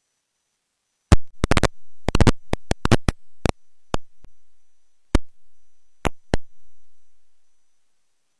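A run of sharp clicks and pops starting about a second in, coming thick and fast for about two seconds, then thinning to single clicks a second or so apart before stopping.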